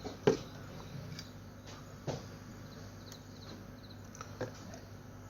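A few light clicks and knocks of small parts and leads being handled on a workbench, the loudest about a third of a second in, over a steady low electrical hum.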